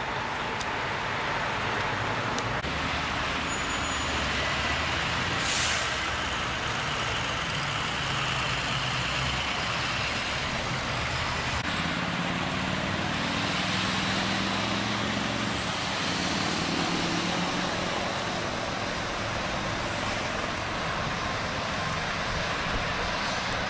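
Steady freeway traffic noise from vehicles passing, with the low hum of a heavy vehicle's engine for several seconds from about twelve seconds in and a short hiss near six seconds.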